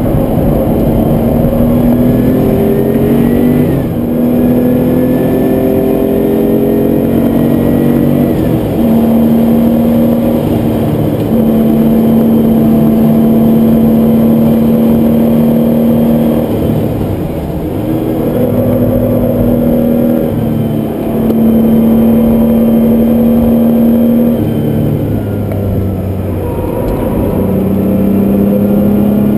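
Air-cooled Porsche 911 flat-six engine heard from inside the cabin while being driven hard. It climbs through the revs, drops at each quick gear change, holds high revs on long stretches, and eases off twice before pulling hard again.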